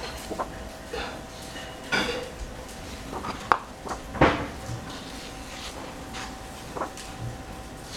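Household dishes and cutlery clinking and clattering in irregular sharp knocks, a few with a brief ringing, over a faint steady hum.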